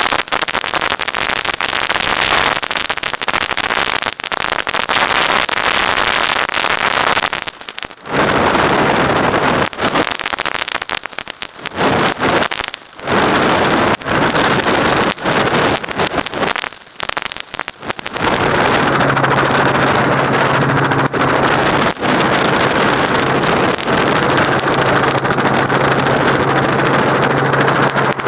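Helicopter in flight heard from aboard: a loud, steady rush of engine, rotor and wind noise. It dips in and out several times in the middle, and a steady low hum comes in about two-thirds of the way through.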